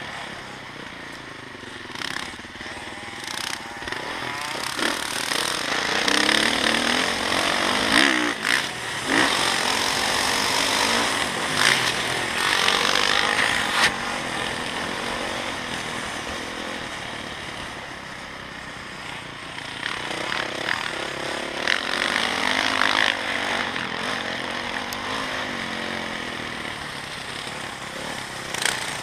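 Motocross dirt bike engine heard up close from the bike being ridden, revving up and down through the gears as it goes around the track. It runs loudest twice, in the first half and again past the middle, with scattered knocks and rattles from the bumps.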